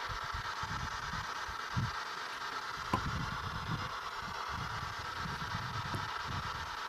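Steady hiss with irregular low bumps and rustling from a handheld camera being carried and moved, and one sharp click about three seconds in.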